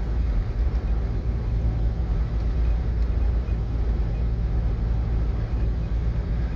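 Steady low rumble of a car driving at speed, heard from inside the cabin.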